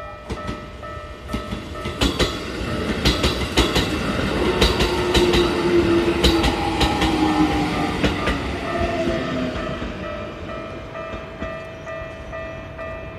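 Keikyu electric train passing over a level crossing, wheels clacking over rail joints and the motors whining in a gliding tone, loudest in the middle and then fading. The crossing's electronic warning bell rings a steady repeating tone throughout.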